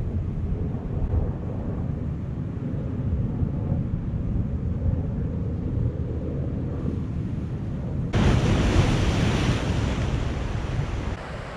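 Wind rumbling on the microphone over low surf. About eight seconds in it changes abruptly to the louder hiss and rush of waves washing through a channel in the shoreline rocks, easing near the end.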